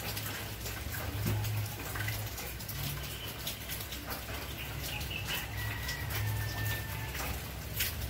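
Light clicks and scrapes of hands working in a washing machine's drain-pump filter opening, over a steady low hum.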